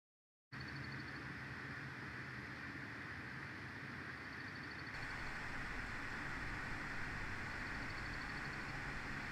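Steady outdoor background noise from a nest-cam microphone: an even rushing sound with a low hum underneath, starting after about half a second of dead silence.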